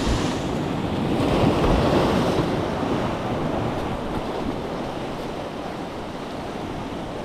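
Sea surf washing over shoreline rocks, with wind on the microphone. The wash swells about a second in and then eases off.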